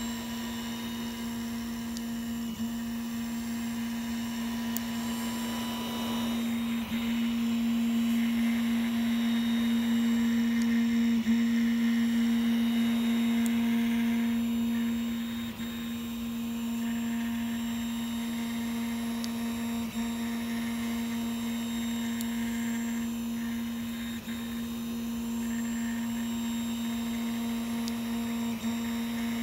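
Tevo Tornado 3D printer running as its print head lays filament across a long bridge: a steady whine, with a short break in the tone about every four seconds.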